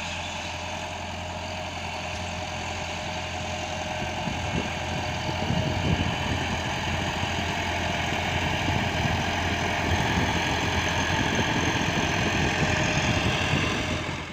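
A vehicle engine running steadily, with a low throb that grows louder about five seconds in and stays louder.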